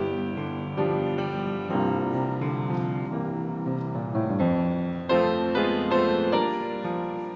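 Grand piano playing slow music, chords struck about once a second and left to ring and fade.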